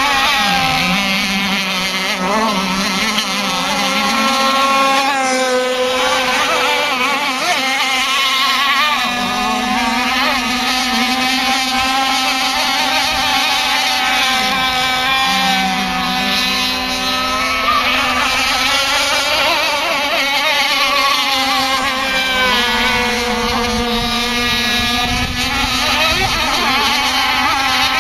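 Small high-revving engines of radio-controlled model racing boats running flat out on the water, their pitch rising and falling as the boats pass and turn, with more than one engine heard at once.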